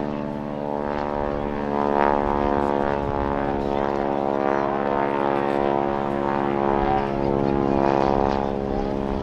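Vintage biplane's radial engine and propeller running steadily in flight, a continuous drone that swells slightly about two seconds in and again near the end.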